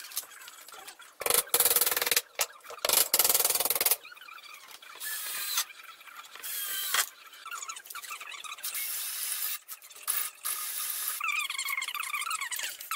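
Woodworking noise on pallet wood, in abrupt cuts: loud rasping bursts about a second in, then softer scraping, with squeaking near the end.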